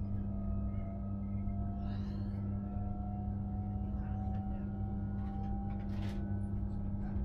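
SJ electric train running, heard from inside: a steady low hum over a rumble, with a fainter whine that rises slowly in pitch, and a few faint ticks.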